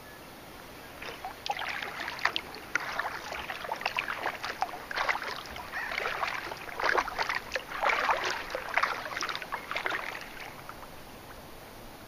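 Kayak paddle strokes in calm water: the blades dip, pull and lift out with repeated splashing and dripping. The strokes start about a second in and fade out near the end.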